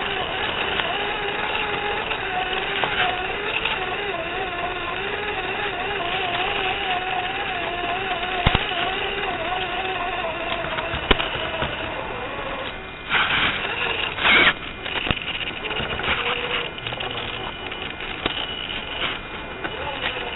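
RC crawler truck's electric motor and gearbox whining, the pitch wavering up and down with the throttle, heard through its onboard microphone over an analog FPV link with a hiss behind it. A few sharp knocks, and two short, louder scraping bursts about two-thirds of the way through.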